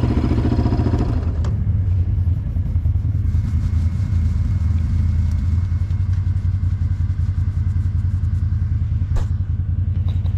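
Yamaha Raptor 700R ATV's single-cylinder engine running, dropping from higher revs to low revs about a second in and holding there steadily.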